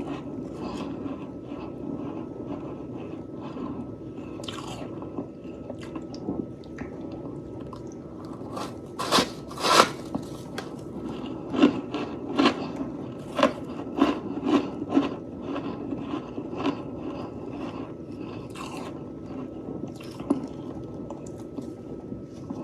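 A person biting and chewing soft, fresh freezer frost close to the microphone: a steady crackling crunch with sharp louder bites, the loudest in a run from about nine to fifteen seconds in.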